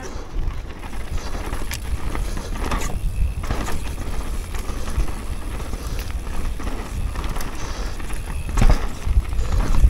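Mountain bike riding fast down a dirt forest trail: a steady low rumble of tyres on dirt, with the bike rattling and scattered knocks, and a louder clatter near the end as it crosses rough, rooty ground.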